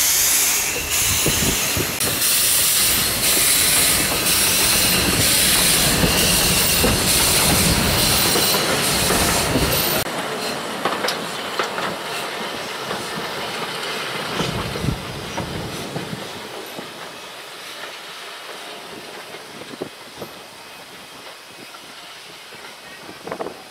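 Narrow-gauge steam locomotive NM25 moving off with a loud hiss of steam, pulsing regularly, which cuts off suddenly about ten seconds in. After that the wheels of the train click and knock over the rails, fading as it rolls away.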